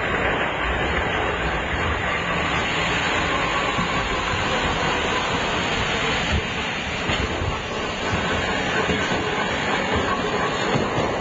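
Manyosen streetcar approaching along its track, its running noise mixed into a steady rush of wind on the microphone.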